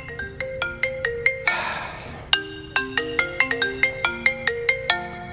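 iPhone ringtone: a repeating melody of short, bell-like mallet notes, like a marimba, ringing for an incoming call, with a short burst of noise about a second and a half in. The ringing cuts off near the end as the call is answered.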